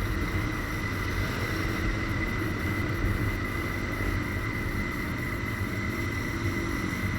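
Single-cylinder street motorcycle running steadily on the move: a low engine drone under an even rush of wind and road noise, with a steady high whine.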